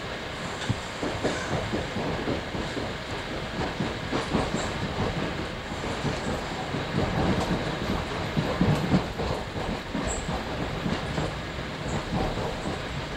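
New Jersey Transit commuter train running at speed, heard from inside the passenger car: a steady rumble with the wheels clattering irregularly over the rails.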